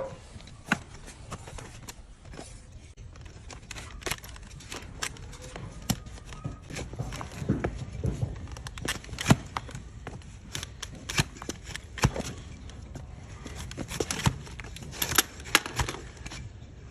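Donkey hoof being trimmed: a cutting tool paring and snipping the hard hoof horn, giving irregular sharp snips and cracks over a low steady rumble.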